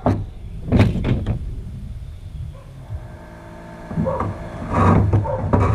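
A few sharp knocks about a second in, then scraping and rustling from about four seconds on, as a car radiator is handled and worked into place.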